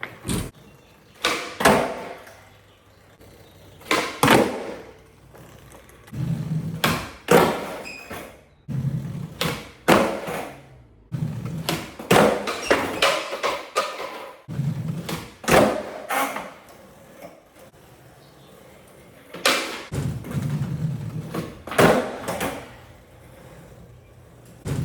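Skateboard being ridden through nollie backside flip attempts: repeated sharp clacks of the board popping and slapping down on landings, with stretches of wheels rolling between them.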